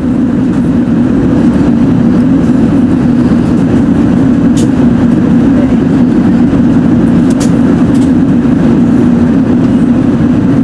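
Steady in-flight cabin noise of an Airbus A380, heard from a window seat over the wing: engine and airflow noise, loud and even, with its weight in a low rumble.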